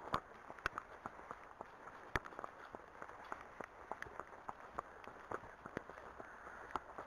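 Horse hooves walking on a tarmac lane: light, uneven clip-clops, about two or three a second, over a faint steady hiss.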